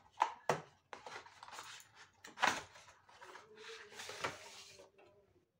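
A paperboard carton is opened and a bottle is pulled out of it: rustling, crinkling and scraping of the cardboard, with several sharp crackles, the loudest about half a second and two and a half seconds in.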